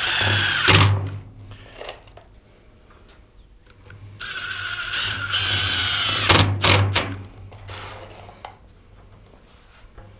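Cordless drill driving screws into a wooden 2x4 frame: a run of the motor whine ends about a second in, and a second, longer run starts around four seconds in, with a few sharp clicks near its end.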